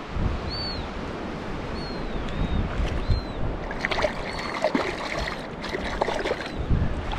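Wind buffeting the microphone over water lapping at the shore, with a string of short high calls that rise and fall, and a burst of harsh squawking from seagulls about four seconds in.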